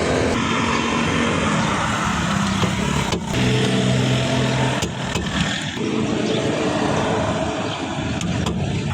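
Motor vehicle engine noise, steady, with its pitch shifting a few times and a few sharp clicks.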